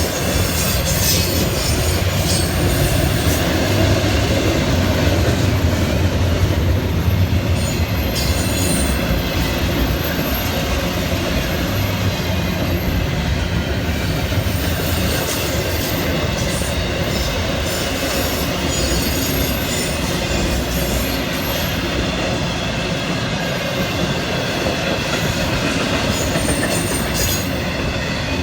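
A Florida East Coast Railway freight train's cars rolling past: a steady rumble of wheels on rail, with clacks over the rail joints and an intermittent high-pitched wheel squeal.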